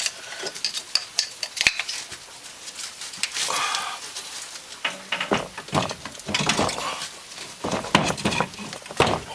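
Metal clanks, knocks and scraping as a Honda Big Red 700's engine is lifted and shifted against its frame during removal: a scattered string of sharp knocks with short scrapes in between.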